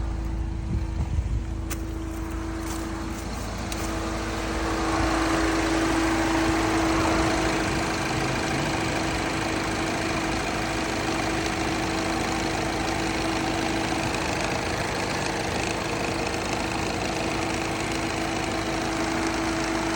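2012 Mini Cooper's four-cylinder engine idling steadily, with a steady hum and a broader rush that comes up about four seconds in, likely the cooling fan; the car now runs again after its faulty fuse box was replaced.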